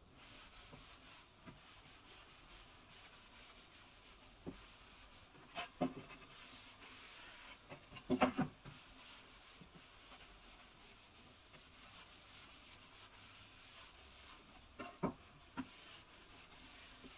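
Damp sponge wiping across a wooden board, a soft steady rubbing, with several sharp knocks as the board is lifted, turned over and stood on edge on the wooden workbench; the loudest knock comes about halfway through. The board is being wetted on both faces before sanding, so that small dents swell out.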